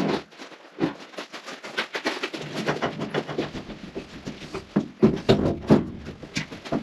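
Irregular knocks, clunks and scuffs of a heavy cast iron sink and its counter being moved and set in place, with a low rumble joining in about two and a half seconds in.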